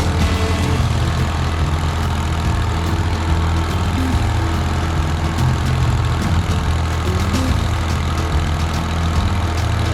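Engine running at a steady idle.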